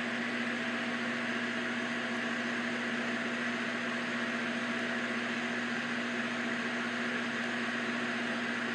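Old electric fan running steadily: a constant motor hum under an even rush of air.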